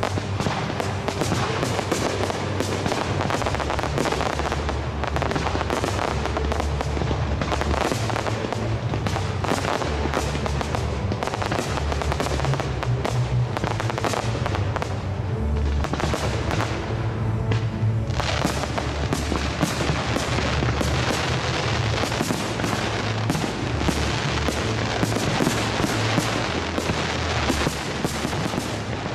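Large fireworks display with aerial shells bursting in many sharp bangs and crackles in quick succession, thinning briefly about halfway through and then dense again. Music plays underneath.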